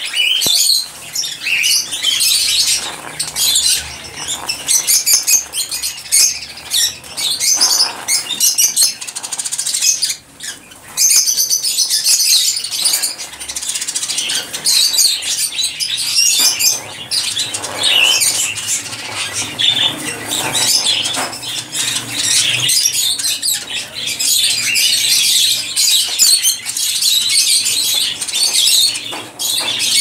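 African grey parrot crunching kernels off a corn cob with its beak: a dense, irregular crackle of small crunches and clicks, with a short pause about ten seconds in.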